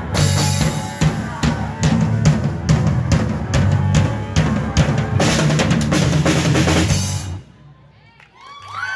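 Live rock band, drum kit with driving kick and snare, electric bass and electric guitar, playing a fast hard-rock ending. It stops abruptly about seven seconds in, and cheering and whistles from the audience start near the end.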